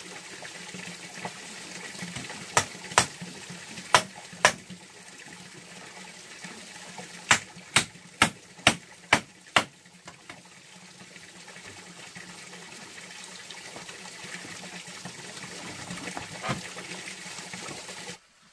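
Steady running water, over which come sharp knocks: a group of four, then a run of six at about two a second, and one more later. The water cuts off suddenly near the end.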